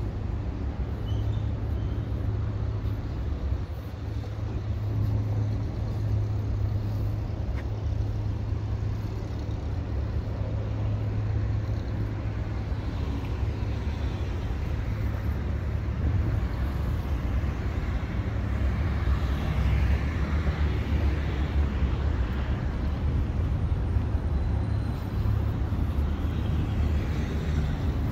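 Road traffic running by steadily: a low engine and tyre rumble, with vehicles swelling past in the middle of the stretch.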